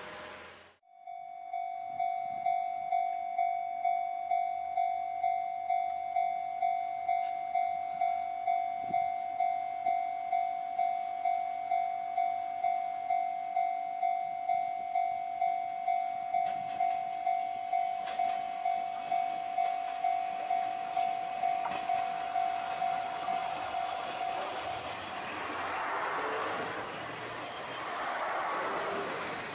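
Railway level-crossing warning bell ringing in a steady pulse of about two strikes a second, stopping about 24 s in. A JR Shikoku 1000 series diesel railcar approaches and runs past close by, its rumble and wheel noise growing over the last few seconds.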